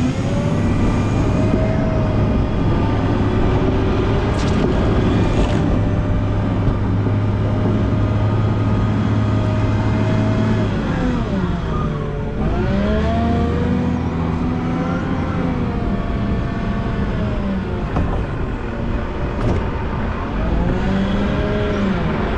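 Volvo L90H wheel loader's diesel engine running under load while plowing snow. The revs drop and climb back about halfway through, and again near the end.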